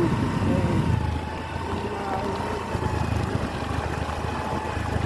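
Motor vehicle on the move: steady engine and road rumble with a constant thin whine.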